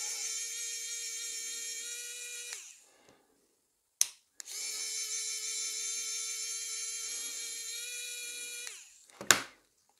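Sequre ES555 electric precision screwdriver running, its small motor whining steadily as it backs out tiny screws. It runs twice: once stopping about two and a half seconds in, then again from shortly after a click until near the end, with the pitch stepping up slightly just before each stop. A second click follows.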